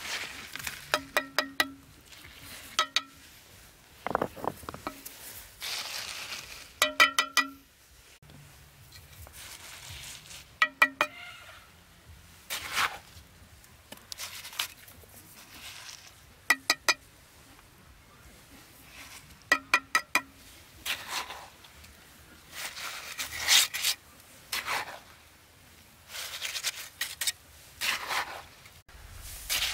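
Quick runs of light metallic taps that ring briefly, repeating every few seconds, between short rasping scrapes.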